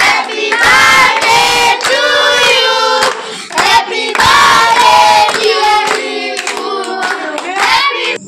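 A group of children and adults singing a birthday song together, with loud hand-clapping throughout.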